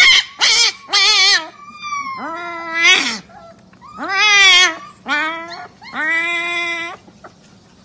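Husky puppy howling and yelping in a string of about eight short, wavering calls that rise and fall in pitch, the last one held for about a second.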